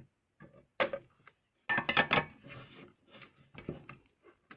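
Plastic toy and its packaging being handled: an irregular run of clacks and rustles, loudest about two seconds in.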